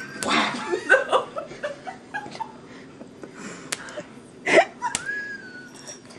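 Soft laughter and short bits of voice, with a couple of sharp taps and one louder outburst near the end.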